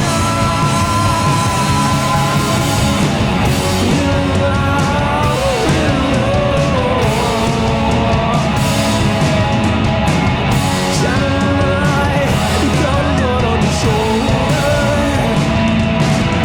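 A rock band playing live: electric guitars and drums in a loud, steady instrumental stretch of a song.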